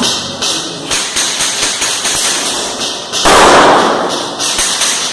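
Airsoft guns firing during play: scattered sharp pops and clicks, with one louder, noisier rush lasting about half a second a little past the middle.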